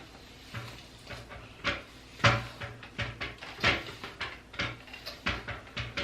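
A brush being pulled through damp hair to detangle it: a run of short brushing strokes, irregular, about two a second.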